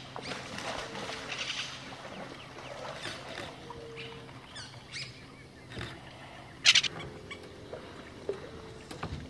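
Wild riverbank birds calling with short chirps and whistles, one loud rasping call about two-thirds of the way through, over a faint steady low hum.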